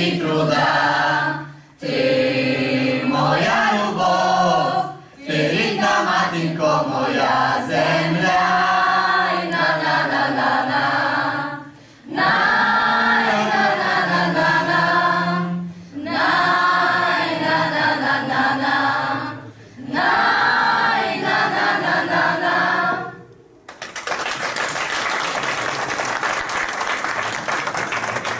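Mixed youth choir singing a Ukrainian song a cappella, in phrases of a few seconds with short breaks between them. About 23 seconds in the song ends and the audience applauds.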